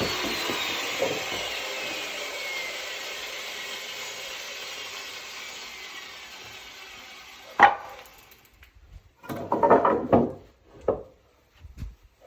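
Electric chainsaw winding down: the motor's noise and whine fall in pitch and fade away over several seconds. A sharp knock follows, then a few more knocks.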